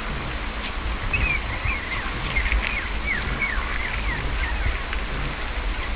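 Young miniature schnauzer puppies giving a string of short, high-pitched squeaks and yips while they play, each sliding down in pitch, over a steady low rumble.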